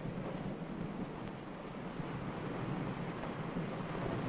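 A steady rushing noise with no distinct events. It dips slightly about a second and a half in and swells again near the end.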